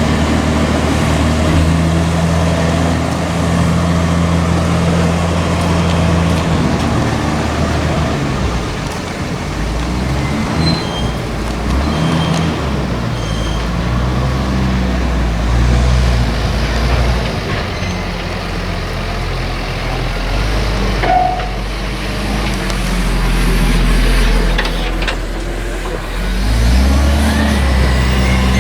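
Heavy diesel farm machinery working during a maize harvest, its engine note stepping up and down as the load and speed change.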